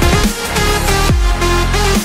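Electronic background music with a heavy bass line; a deep bass note slides down in pitch twice.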